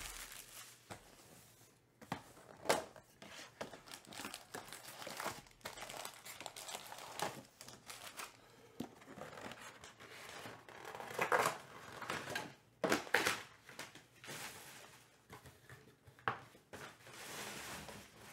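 Plastic shrink wrap being torn off a trading-card box and handled with foil card packs, giving irregular crinkling and tearing with a few sharper crackles, the loudest about 3 s in and around 11–13 s in.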